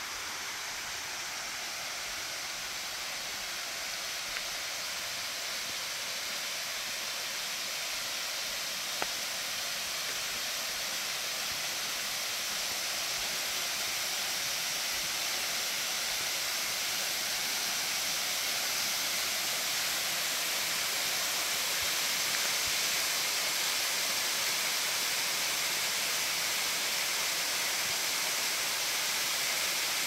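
Waterfall spilling down a rock face in a steady, even rush of water that grows slowly louder as it is approached. It is running at a low, late-summer flow.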